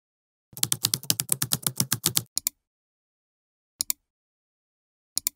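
Rapid typing on a computer keyboard for about two seconds, followed by a few short double clicks spaced a second or more apart.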